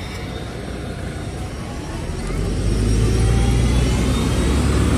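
Road traffic on a busy city street, with a low rumble that grows louder a little over two seconds in and then holds.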